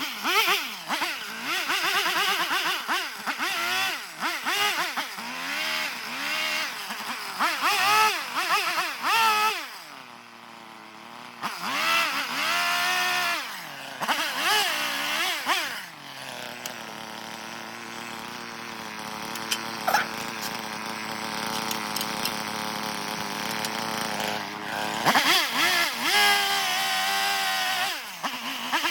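Carving chainsaw revving up and down in repeated short bursts. It settles into a steady idle about halfway through, then revs in bursts again near the end.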